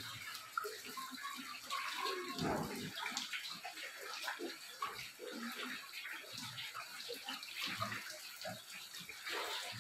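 Shallow floodwater on a house floor sloshing and splashing as someone wades through it, in a run of irregular steps.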